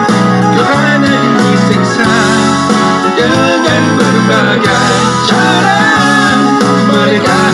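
Guitar-led music playing steadily throughout.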